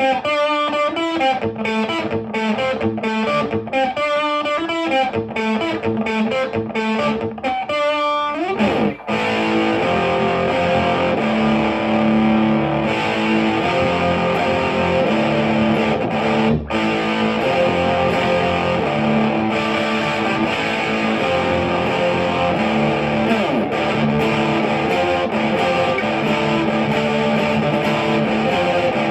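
Distorted electric guitar through a Marshall JCM900 4502 combo amp with Celestion G12T-75 speakers. It plays fast picked single-note riffs with short stops for about nine seconds, then a quick slide into sustained overdriven chords and held notes.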